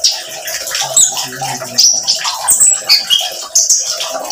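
A caged male konin sunbird singing a loud, rapid run of high chirps and slurred twittering notes, over a continuous trickle of water.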